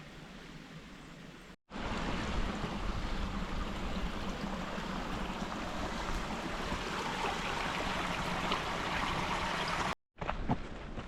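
Steady, loud rushing noise with no distinct pitch, outdoors in strong wind country. It breaks off in a brief dropout near the end, after which a few sharp footstep-like clicks are heard.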